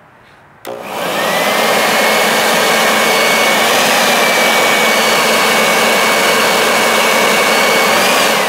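Leaf blower switched on about half a second in, its whine rising as it spins up, then blowing loudly and steadily at full speed. Near the end it is let off and the whine starts to fall.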